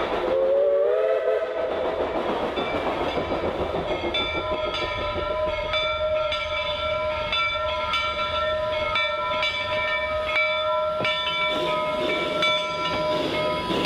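Steam train sounds: a rush of steam and rail noise with a short wavering, rising tone about a second in. From about four seconds on, a steam whistle sounds a steady chord of several notes, held with short breaks.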